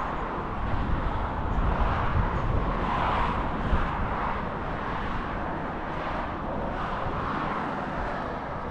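Outdoor city street ambience: a steady wash of traffic noise with a low rumble, a little louder in the middle.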